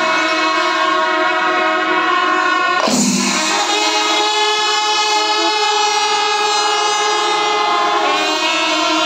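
Kerala temple melam: massed chenda drums played together with long, sustained blasts of brass kombu horns and kuzhal pipes, the held horn notes dominating. The horn chord shifts abruptly about three seconds in and changes again near the end.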